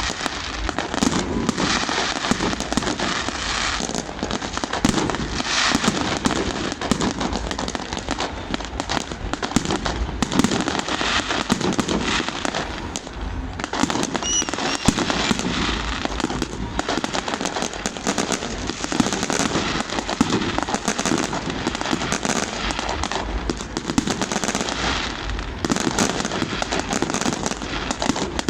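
New Year fireworks display going off without pause: many bangs and crackles overlapping into a dense, continuous barrage.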